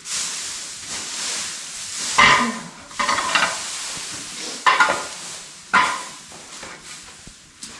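Dry straw rustling and crackling as it is forked and pushed about with a pitchfork, louder in several surges.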